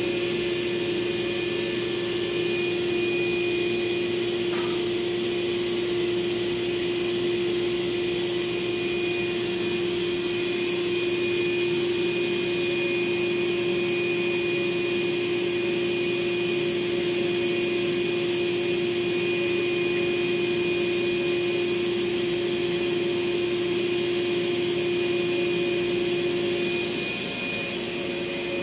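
DeWalt shop vacuum running steadily, with a constant motor hum over the rush of air; the level dips slightly near the end.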